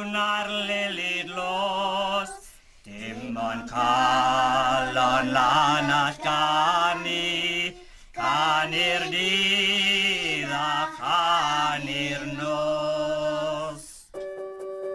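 Unaccompanied voices singing slow, long-held phrases in harmony, in three phrases with short breaks between them, like a chant or hymn.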